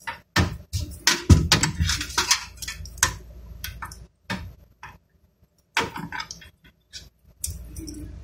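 Irregular clicking, knocking and clattering of cables and metal parts being handled inside an open desktop computer case, in bunches with short pauses between them.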